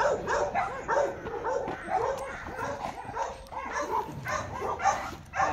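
Dog barking and whining in a quick run of short, pitched calls.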